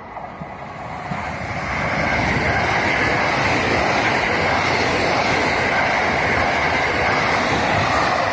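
A JR West 683 series electric express train running through the station at speed. The rush of wheels on rail and moving air swells over the first two seconds and then holds loud and steady as the cars sweep past.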